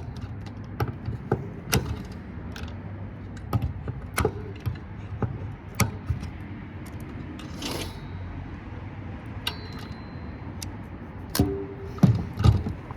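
Irregular sharp clicks and knocks of hand tools and metal parts being handled while a circuit board is stripped for scrap, over a low steady hum, with the loudest knocks near the end.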